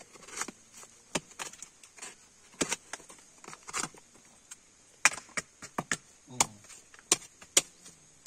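Knife blade knocking and scraping against coconut shell and a wooden block as coconut meat is pried out of the shell for copra: irregular sharp clacks, about two a second.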